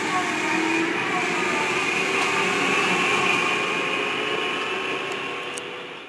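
Running noise inside an electric train car: a steady rumble with thin high whining tones over it, dying away near the end.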